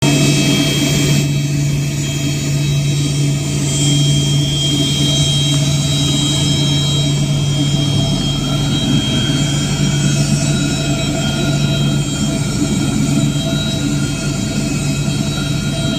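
Aircraft engines running steadily: a continuous low drone with thin high-pitched whine tones on top.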